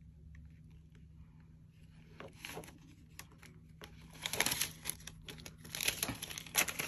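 Paper banknotes rustling and crinkling as a stack is pulled from a clear plastic binder pouch and handled. It is faint with a few ticks at first, then a denser crinkling starts about halfway through.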